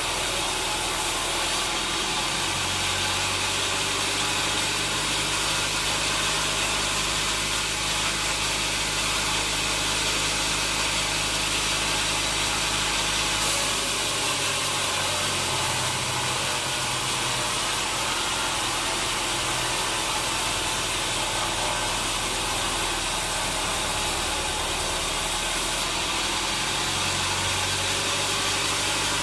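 Sawmill machinery running steadily: a constant hiss over a low motor hum whose pitch shifts a few times.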